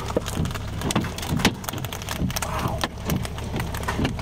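Large hailstones hitting a vehicle's roof, body and glass, heard from inside the car as a dense run of irregular hard knocks over a steady low rumble.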